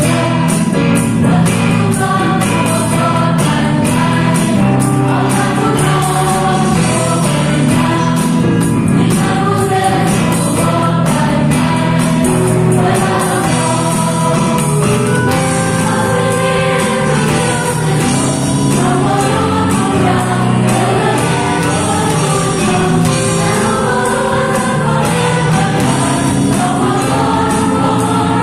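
A small band playing a gospel worship song: electronic drum kit keeping a steady beat with a ticking hi-hat, electric bass, digital piano and keyboard, with a choir-like sound of voices over it.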